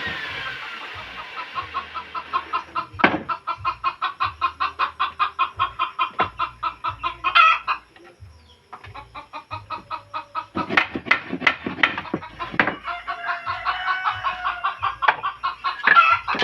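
Chickens clucking in quick, rapid runs, about six clucks a second, broken by a short lull. A few sharp knocks come through, a cluster of them about two-thirds of the way in.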